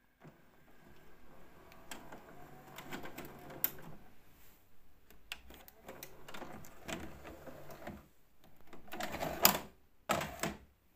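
VHS video cassette recorder's tape mechanism running: a low motor whir with scattered clicks, then a cluster of louder clicks and clunks near the end as the cassette is ejected and taken out.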